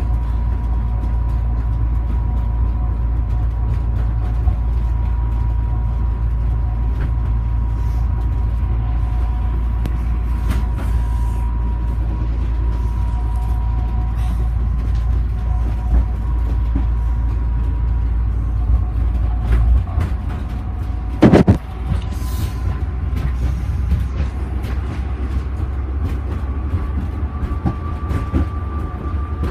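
Heathrow pod, a battery-electric personal rapid transit car, running along its guideway, heard from inside the cabin: a steady low rumble with a steady motor whine over it. About two-thirds through the rumble drops and there is one loud knock, and near the end the whine rises in pitch.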